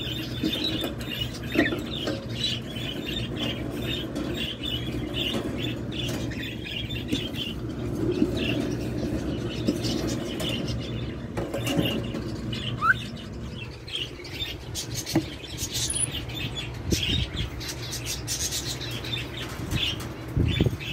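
Small birds in an aviary chirping in quick, repeated notes, busiest in the first few seconds, with wing flaps and rustling among them and a steady low hum underneath.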